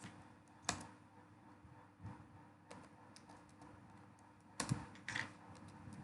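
Computer keyboard typing: sparse, irregular keystrokes, with a louder key click about a second in and two more near the end, and fainter taps between.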